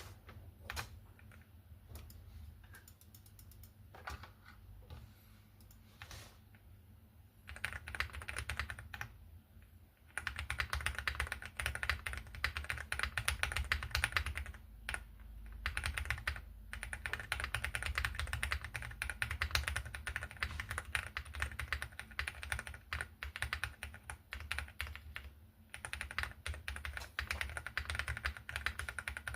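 Typing on a mechanical keyboard with Cherry MX Purple switches. Scattered single keystrokes at first, then fast continuous typing from about eight seconds in, broken by a few brief pauses.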